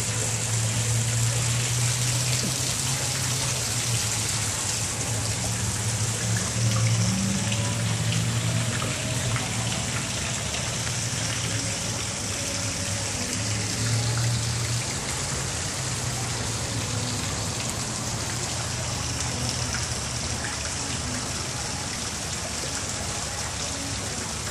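Steady rush of running water with a low hum underneath, unbroken throughout.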